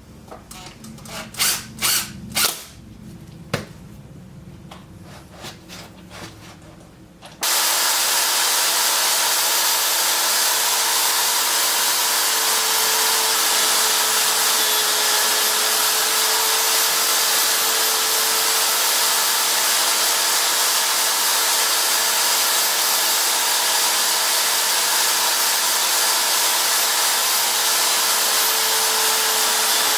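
A few wooden knocks and clicks, then about seven seconds in an electric drill motor switches on and runs at a steady speed with an even whine.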